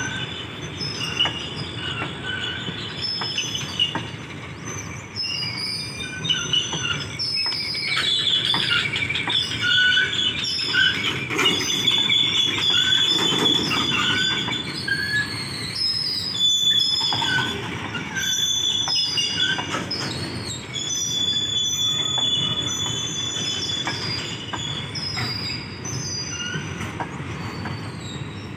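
Freight train of covered goods wagons rolling past, its steel wheels rumbling and clicking over the rail joints with many short squeals at several pitches. It grows louder partway through, then eases off again.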